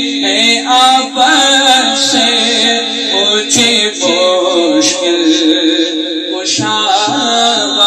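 Male voice singing an Urdu manqabat in long, gliding melodic lines with heavy reverb, over a steady droning background.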